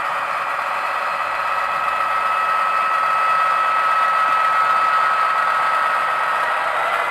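Sound-fitted OO gauge Class 66 diesel model playing its DCC decoder's engine sound through the model's small speaker as it pulls away with its train. The engine note is thin and has no bass, with a steady whine over it, and it grows a little louder about two seconds in.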